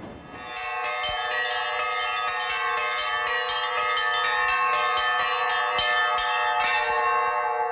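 Russian church bells being rung: several higher bells are struck in quick succession over a lower bell that rings on steadily beneath them. The ringing fades near the end.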